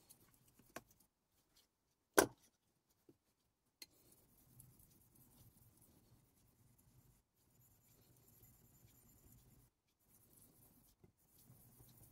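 Faint strokes of a Deba knife's blade across a water-wetted Okunomon natural polishing stone, with no slurry, a soft scratchy rubbing. There is a sharp click of metal on the stone or holder about two seconds in.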